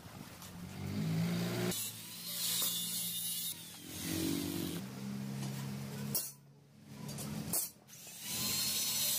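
Angle grinder with an abrasive cut-off disc cutting through mild-steel square tube. The motor hums, then the disc bites into the metal with a harsh, hissing grind that breaks off for a moment twice before cutting on.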